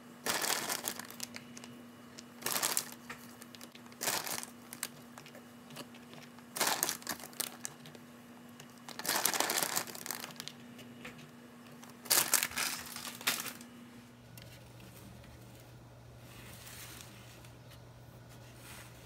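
Crinkly rustling in short bursts every couple of seconds as mini vanilla wafers are handled and set into a crust in a thin aluminium foil pie pan, with the foil crackling under the hand. The rustling stops about two-thirds of the way through, leaving only a faint low hum.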